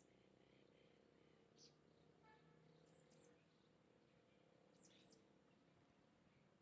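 Faint, short, high-pitched bird chirps: a few scattered calls, with one lower, pitched call about two seconds in.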